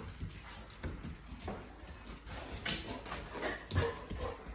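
A group of dogs scuffling and jostling on a hard floor, claws clicking and skittering, with a dog whimpering briefly near the end.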